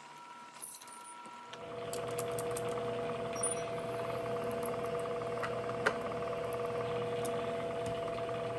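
Bridgeport vertical milling machine running during reaming, a steady machine hum with a whine in it that comes in louder about a second and a half in and holds. A few light clicks are heard over it.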